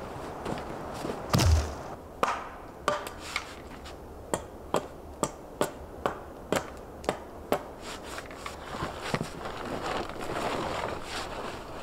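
Wood being handled at a winter camp: a heavy thump about a second in, then a quick run of about eight sharp knocks, roughly two or three a second. Near the end a campfire crackles.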